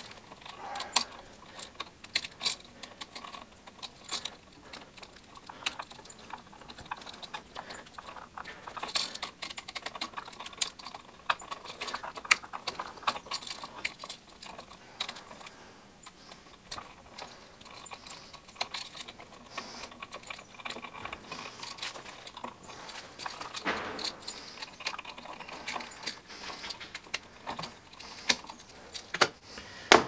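Small irregular clicks, taps and scrapes of hands taking an old three-prong outlet off its wires: metal terminal screws, mounting strap and wire ends knocking and rubbing, with a few louder ticks now and then.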